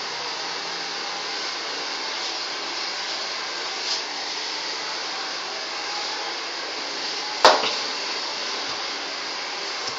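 Handheld hair dryer blowing steadily, with a sharp knock about seven and a half seconds in.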